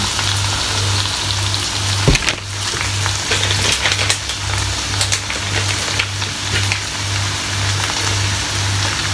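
Bacon sizzling and crackling in a small frying pan, with a single sharp knock about two seconds in.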